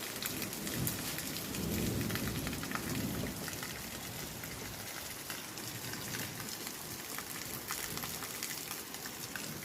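Heavy rain pouring steadily, with drops spattering close by. A low rumble swells and fades between about one and three seconds in.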